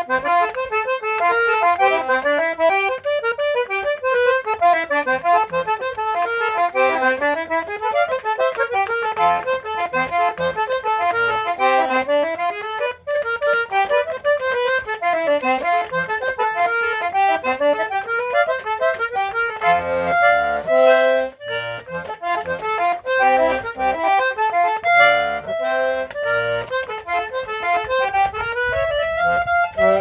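Eight-bass button accordion (sanfona de 8 baixos) played solo: a fast instrumental tune of rapid note runs sweeping up and down, with a stretch of lower, chordal notes about two-thirds of the way through.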